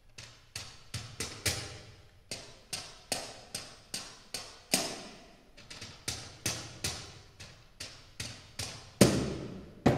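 Sheets of paper played as percussion, giving sharp cracks at uneven spacing, about two or three a second, each ringing briefly in the hall; a louder, fuller crack comes about nine seconds in.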